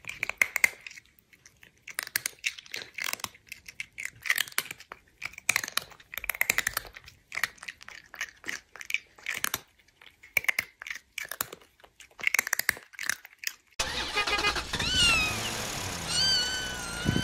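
A cat eating noisily: irregular crunchy chewing and smacking with short mewing sounds mixed in. About fourteen seconds in, music with sliding whistle-like tones takes over.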